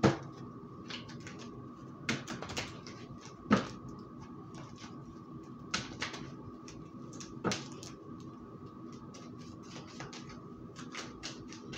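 Tarot cards being handled on a table: irregular taps and clicks, a few sharp ones spread through and a quick cluster near the end, over a faint steady hum.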